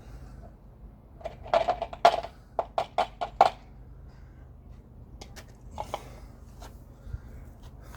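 Quick clicks and light knocks of small parts being handled at the engine, a tight cluster of them about a second and a half in, then a few scattered clicks around six seconds, over a faint low hum.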